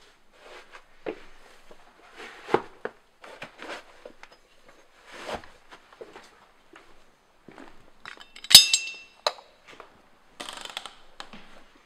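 Objects being handled: a run of short clicks, knocks and rustles, with one sharp ringing clink about eight and a half seconds in as the loudest sound.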